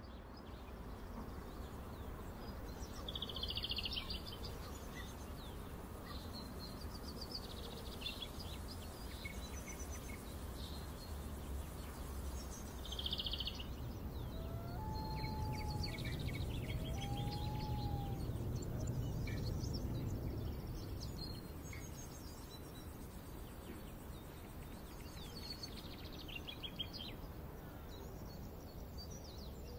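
Outdoor ambience: small birds chirping in short runs of quick high notes every few seconds over a steady low rumble that swells in the middle. Two short whistled notes come about halfway through.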